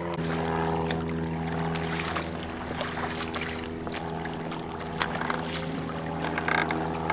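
Small outboard motor on an inflatable tender idling steadily, a low even hum, with a few light knocks now and then.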